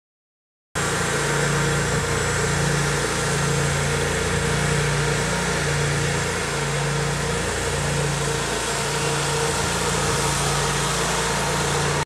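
Engine of a walk-behind stump grinder running steadily as it is driven along, with a slow, regular throb in its note about once a second. It starts abruptly just under a second in and cuts off at the end.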